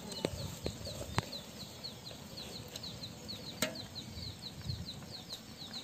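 Outdoor background with a fast, steady series of short high chirps, about five a second, and three sharp clicks at about a second in, a second later and midway.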